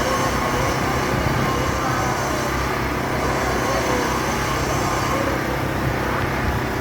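Busy city-street ambience: vehicle engines running steadily, with a constant traffic hum.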